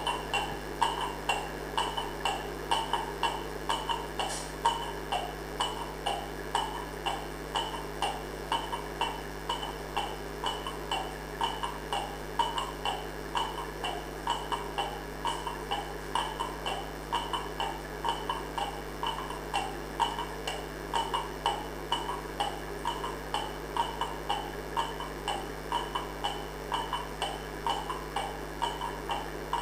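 Looping background track of soft, evenly spaced ticks, roughly three a second, unchanging throughout, over a steady low hum.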